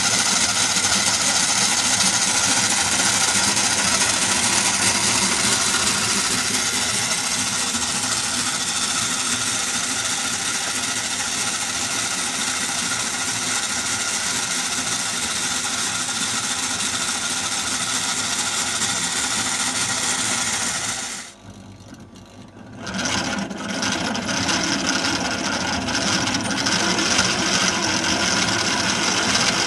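Merkur metal construction-set model of one engine cylinder running: a steady, dense whirring clatter from its spinning crankshaft, flywheels and valve gear. The sound drops away sharply for about a second and a half a little past two-thirds of the way through, then picks up again.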